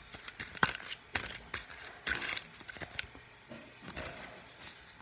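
Plastic packaging of a toy wristwatch crinkling and clicking as it is handled and waved about, in short irregular crackles and sharp clicks.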